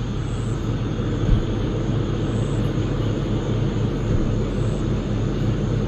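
Pickup truck engine idling with a steady low drone, and a single short knock about a second and a half in.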